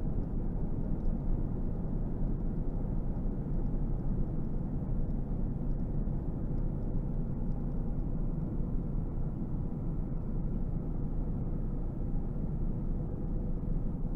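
Steady road and engine noise heard inside a car cruising at highway speed: an even, low rumble with no change.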